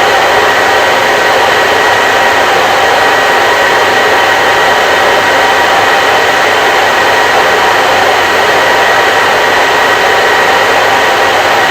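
Hair dryer running steadily: an even, unchanging rush of air with a steady motor whine.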